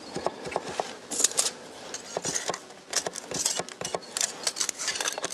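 Irregular light clicks and small metallic clinks from hand work on an accordion's keyboard and pallet mechanism.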